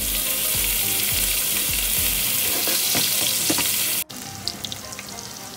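Chopped onion and green chillies sizzling in hot oil in a frying pan, stirred with a spoon. About four seconds in, the sizzle drops suddenly to a much quieter level.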